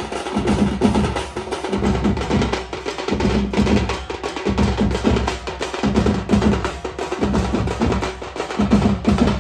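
Sambalpuri drum band of dhols and tashas played together in a fast, loud rhythm, deep drum strokes under sharp stick hits.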